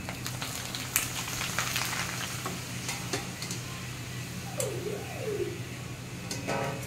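Coloured papad sticks sizzling as they deep-fry in hot oil in a kadai, stirred with a metal skimmer that clicks against the pan a few times.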